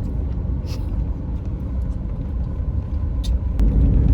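Steady low road and engine rumble heard from inside a moving car, with a few faint clicks. The rumble grows louder near the end.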